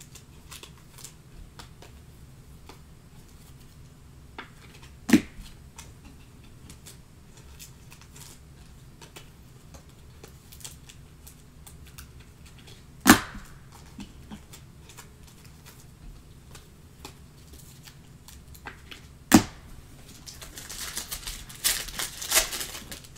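Faint small clicks and handling noise, with three sharp clicks spaced several seconds apart, then the crinkling of a foil trading-card pack's wrapper being torn open near the end.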